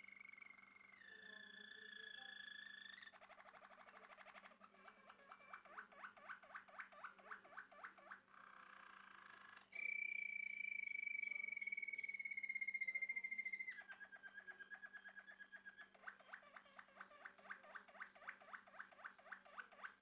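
Male Malinois Waterslager canary singing: long held whistled notes alternating with trills of quickly repeated notes, about four a second. The loudest passage is a steady held note, slightly falling in pitch, that starts about ten seconds in and lasts about four seconds before the trills resume.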